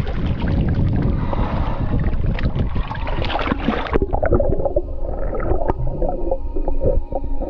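Seawater splashing and sloshing as a large fish is held at the surface and released beside an inflatable boat. About four seconds in the sound turns abruptly muffled and bubbly, heard through a camera under the water as the fish swims away.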